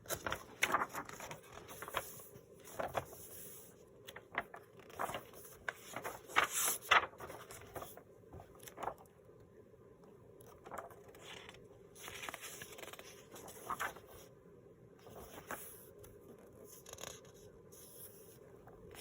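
Paper and book pages being handled: sheets sliding, scraping and rustling in short, irregular spells, with a few light taps. It goes quieter for a few seconds in the middle.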